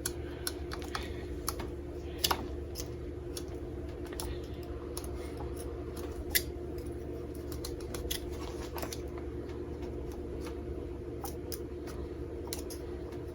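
Case pocket knife blade scraping and picking at the rubber of an outboard motor's upper crankcase seal: a scatter of small clicks and scratches, with a sharper click about six seconds in, over a steady low hum.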